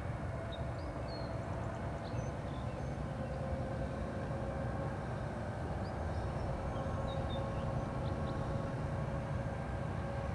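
Low, steady rumble of heavy vehicles crawling closer: the diesel engine of a semi tractor pulling an oversize load, with its pilot truck leading. The sound grows slightly louder near the end.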